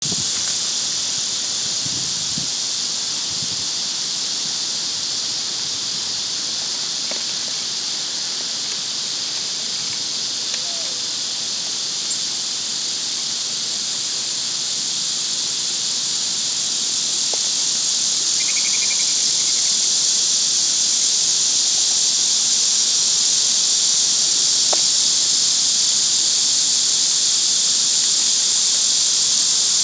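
Steady high-pitched insect chorus droning without a break, growing louder about halfway through.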